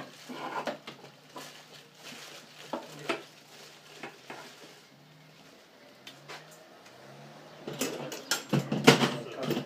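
Scattered metallic clinks and knocks as a steel spit rod is pushed through a whole pig carcass lying on plastic sheeting in a metal tray, with a denser, louder burst of clatter near the end.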